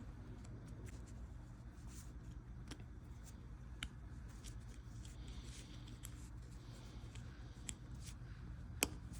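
Faint metallic clicks and ticks of a brake pad and its retaining spring being handled and fitted into a caliper bracket, with one sharper click near the end.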